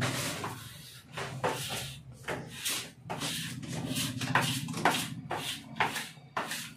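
A run of short, irregular rubbing and scraping strokes, several a second, over a faint low hum.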